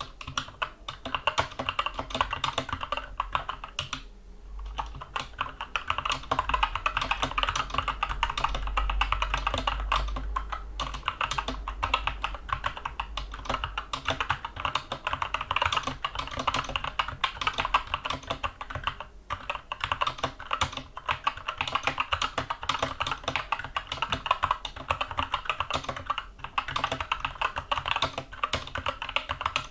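Fast, continuous typing on a Skyloong SK64 mechanical keyboard with Gateron Brown tactile switches: a dense stream of key clacks, with a brief pause about four seconds in.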